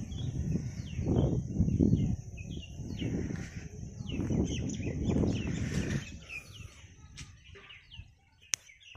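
Small birds chirping repeatedly, with short falling calls, over a steady high hiss. A low rumbling noise runs underneath for the first six seconds and then dies away.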